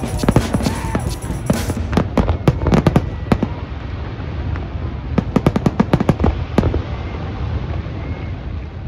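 Fireworks display: rapid volleys of sharp shell bursts and crackling bangs. They come in clusters with short lulls between, and the last cluster comes about six seconds in.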